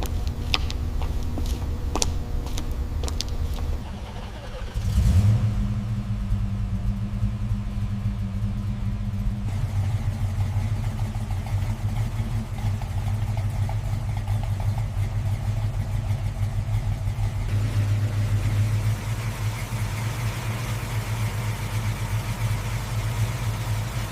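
Rebuilt V8 engine of a 1967 Ford Mustang Fastback starting for the first time after restoration. It cranks for a few seconds, catches about five seconds in with a brief rev, then settles into a steady idle.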